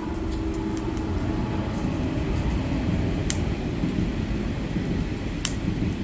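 Dried split firewood burning in a steady low rumble, with a few sharp crackles and pops from the logs.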